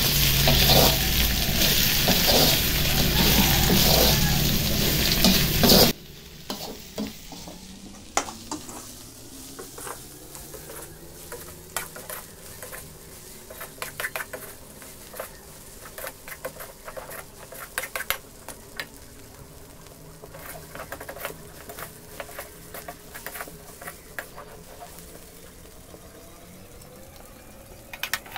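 Shrimp and pork stir-frying in a steel wok: a loud sizzle that drops suddenly about six seconds in to a much quieter one. A perforated metal spatula scrapes and clinks against the wok throughout.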